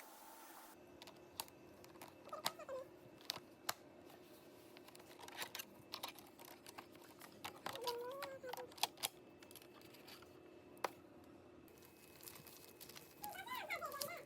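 Light, scattered clicks and taps from handling the packaging while opening a robot vacuum, with a cat meowing briefly three times over a faint steady hum.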